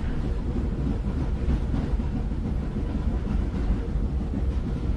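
MAX light-rail car running, heard from inside the passenger cabin: a steady low rumble with a faint steady hum.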